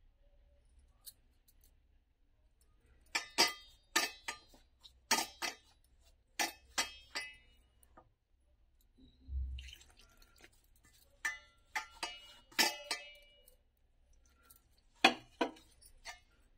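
Sharp metallic clinks and taps in quick clusters, each with a short ring, from hand-mixing flour in a stainless steel bowl, with wrist bangles and fingers knocking against the bowl. A dull thump a little past halfway.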